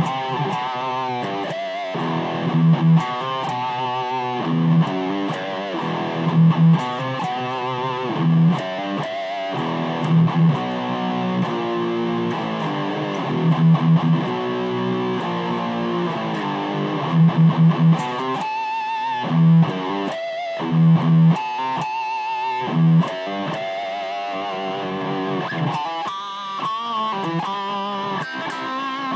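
Epiphone Les Paul electric guitar played through a Fender Mustang modelling amp: a lead line of wavering, bent notes, with a loud low note struck again every second or two.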